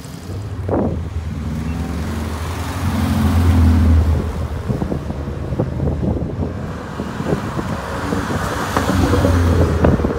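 Cars driving past, their engines giving a low steady hum that swells louder about three to four seconds in and again near the end. Wind buffets the microphone.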